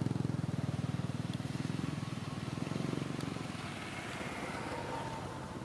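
A small engine running with a fast, even pulse, fading away after about three and a half seconds.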